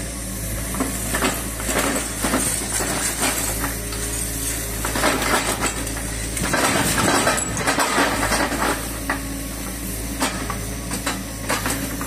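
Kobelco mini excavator's diesel engine running steadily while its grapple swings a sack of rubbish over a dump truck and drops it in. The rubbish clinks and clatters throughout, loudest about six to eight seconds in as the load goes into the truck bed.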